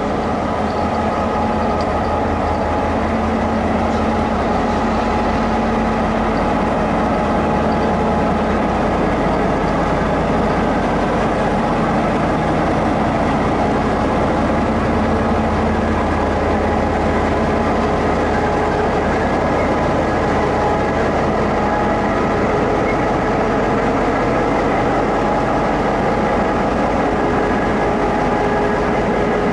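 Diesel-electric locomotives, among them an EMD R150-class unit, running steadily as they roll slowly past: a low engine drone with several steady tones over it.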